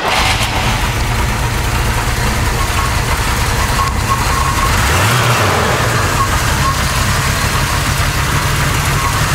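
1983 GMC Jimmy K5's 305 cubic-inch V8 idling steadily, its pitch briefly rising and falling about five seconds in.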